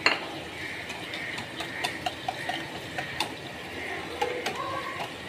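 Wire whisk stirring a thick spice paste in a ceramic plate: a knock right at the start, then irregular light clicks of the whisk wires against the plate.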